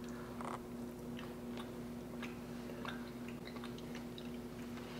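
Faint chewing and small mouth clicks of people eating soft baked cinnamon rolls, over a steady low hum.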